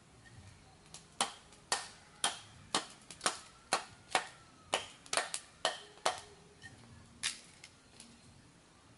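Machete blade chopping into a wooden stick: about a dozen sharp knocks, roughly two a second, then one last chop about a second later and a few light taps.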